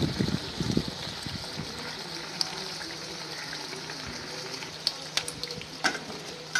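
Medu vadas (urad dal fritters) deep-frying in hot oil in an aluminium kadai over a medium flame: a steady sizzle, with a few sharp crackles in the last two seconds.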